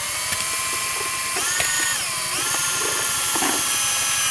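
Power drill motor running continuously with a steady whine. The pitch steps up about a second and a half in and shifts again a little after two seconds, as the trigger speed changes.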